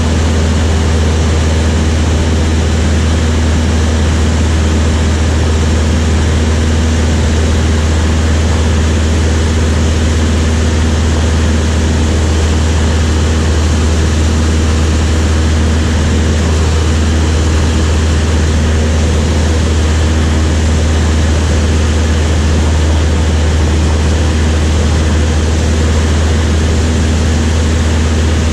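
Light propeller aircraft's piston engine droning steadily, holding one pitch with no change in power.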